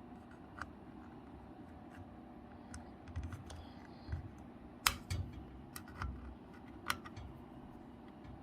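Scattered sharp clicks and light knocks, the loudest about five and seven seconds in, from handling the metal safe and its lock.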